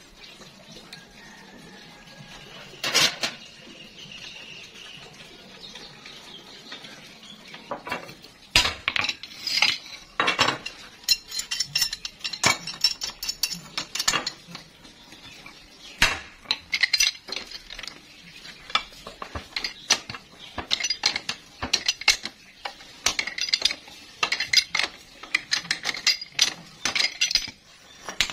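Pipe wrench working on a length of steel water pipe and its fitting: one sharp metal clank about three seconds in, then from about eight seconds on many quick, irregular metallic clinks and scrapes as the wrench grips, slips and turns on the pipe.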